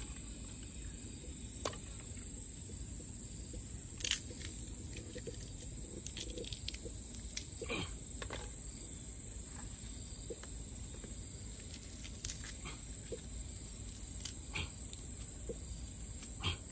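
Open wood fire under a cooking pot crackling steadily, with scattered sharp pops and snaps, over a faint steady high-pitched whine.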